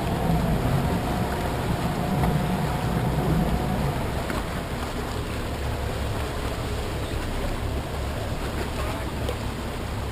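Boat engine running steadily under a wash of water and wind noise.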